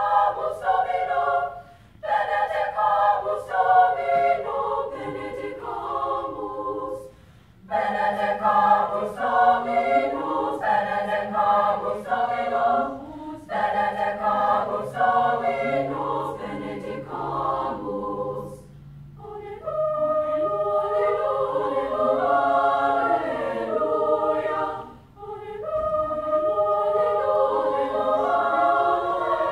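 Girls' choir singing in several parts, the phrases broken by short pauses a few times.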